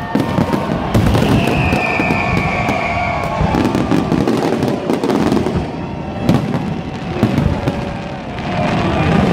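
Fireworks display: a rapid series of bangs and crackling from shells bursting overhead, with a high whistle falling slightly in pitch from about a second in for two seconds or so.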